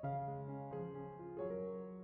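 Background piano music, with a new chord struck about every three-quarters of a second.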